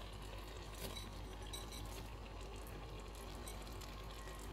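Tomato and cream sauce simmering in a pan, with a few light clicks as grated parmesan is tipped in from a bowl.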